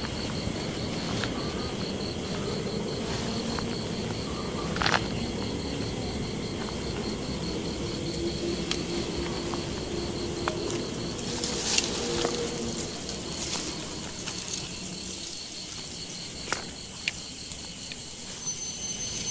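Forest insects: a steady high buzz with a cricket-like chirp pulsing at an even, rapid rate, broken by a few sharp snaps. A short, thin high tone sounds near the end.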